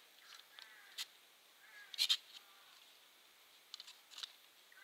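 Birds calling: several short harsh calls, with a few sharp, high chirps; the loudest is a cluster of chirps about two seconds in.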